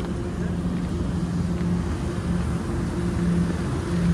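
A steady low machine drone with a constant hum under a rumbling background.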